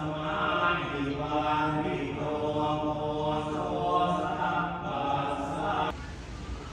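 Buddhist chanting: voices chanting in long, held tones that shift in pitch about once a second, then stop abruptly about six seconds in.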